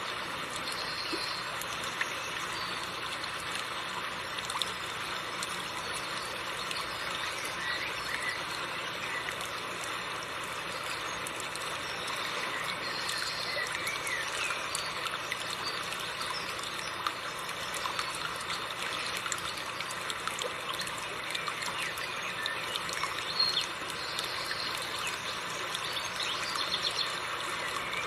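Seomjin River water flowing and trickling over rocks, a steady rush of water, with a few faint bird chirps over it.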